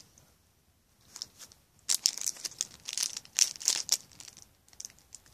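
Foil wrapper of a Match Attax trading-card pack crinkling and tearing as it is opened by hand, in quick crackly rustles starting about two seconds in.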